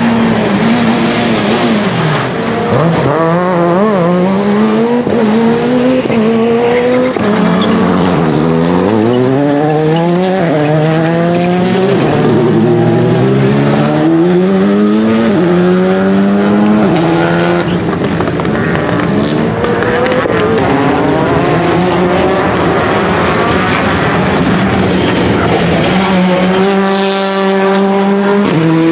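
Rally car engine running hard on a stage, its pitch climbing through the gears and dropping again several times as it accelerates and lifts. Near the end it holds one steady high pitch for a couple of seconds.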